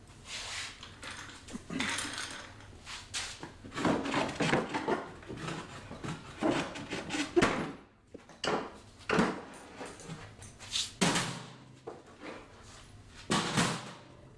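Irregular knocks, clunks and clatter of hand tools and wooden or metal parts being handled and moved, with short gaps between them.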